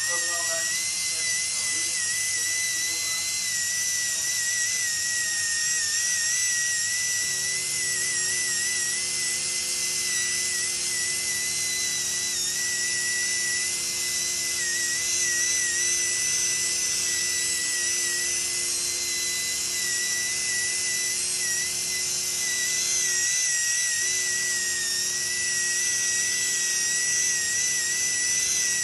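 High-speed right-angle polishing handpiece whining steadily at a high pitch while it polishes a steel mold cavity, the pitch wavering slightly as it works.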